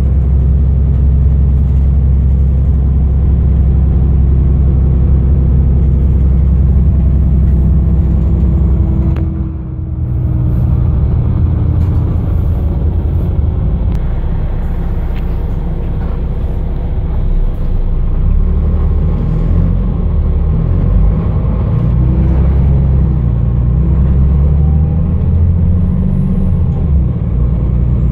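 Diesel engine of a Solaris Urbino 15 city bus, a 9.2-litre DAF unit, running under way as heard inside the passenger cabin: a steady low hum, a brief dip in loudness about nine seconds in, then a rougher, more uneven rumble.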